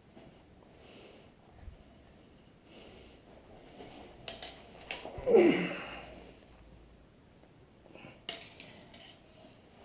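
A few sharp clicks of a metal snake hook against floor tiles as a bath mat is shifted. About five seconds in comes one short, loud, falling cry.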